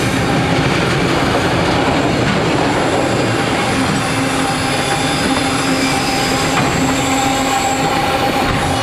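Intermodal freight train rolling past close by: a loud, steady rumble and rattle of wheels on rail, with thin, steady squealing tones from the wheels.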